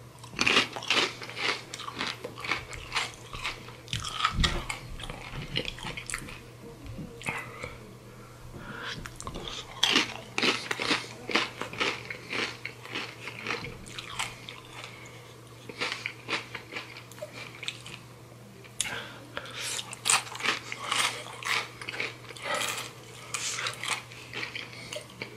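Close-up crunching and chewing of Takis rolled corn tortilla chips, in spells of rapid crunches with short pauses between mouthfuls.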